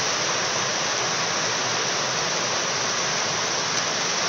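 A steady, even hiss at constant loudness covers the whole sound, with one faint click about four seconds in.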